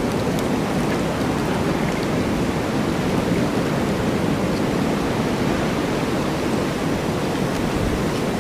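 Winter wind in a snowstorm blowing steadily, an even rushing noise with no gusts.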